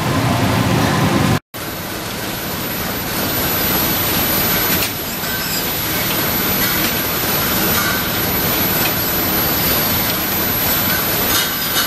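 Bottle-packing line running: steady mechanical noise from the conveyors and case-packing machine, with faint ticks. The sound drops out completely for a moment about a second and a half in.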